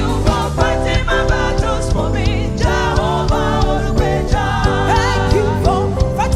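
Praise and worship music: voices singing over a band, with held chords and a steady drum beat.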